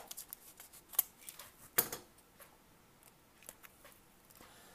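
Razor utility knife cutting the corner off a foil MRE sauce pouch: a few short, sharp clicks and crackles over the first two seconds, the loudest about two seconds in, then faint handling ticks.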